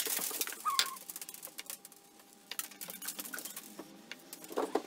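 Small grains of gunpowder being swept and scraped together by hand on a tabletop: a scattered run of small ticks and clicks. A short squeak sounds just under a second in.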